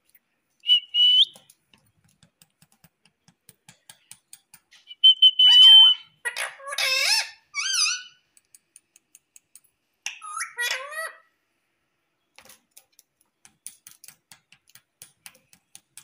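Indian ringneck parakeet giving two short, steady whistles, then bursts of chattering, speech-like calls with bending pitch. Faint light clicks of its beak tapping on the plastic box come in between.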